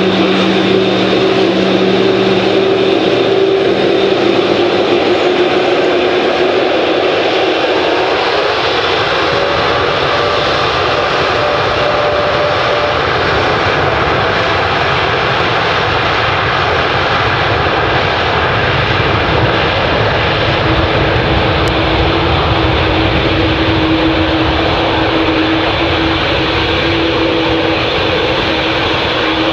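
Boeing 787-8's GE GEnx jet engines running at takeoff power as the airliner rolls down the runway. The jet noise is loud and steady, and a deep rumble builds about a quarter of the way in.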